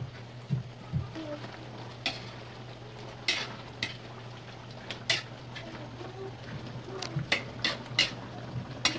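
Metal ladle stirring chicken stew in tomato sauce in a steel pan on a gas burner, scraping and clinking sharply against the pan about once a second, over the sauce's simmering sizzle. A steady low hum runs underneath.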